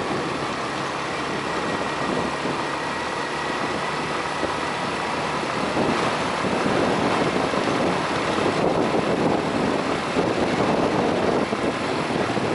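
Suzuki 125 motorcycle being ridden, its small engine running steadily under road and wind noise, a little louder from about halfway.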